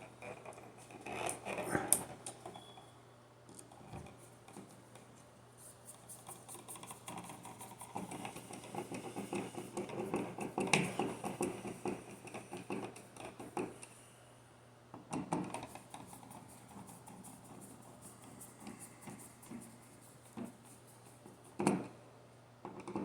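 Hand-handling noise of a wall receptacle and its wiring being worked into an electrical box: scraping, rubbing and scattered clicks, busiest in the middle.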